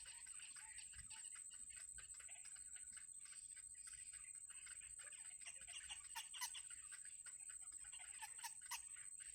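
Baby birds in the nest cheeping faintly, rapid short peeps that bunch up a little louder around six seconds in and again near the end, over a steady high-pitched whine.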